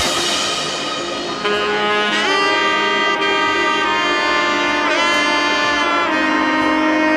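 Background music: a horn-like melody of long held notes that slide in pitch from one note to the next.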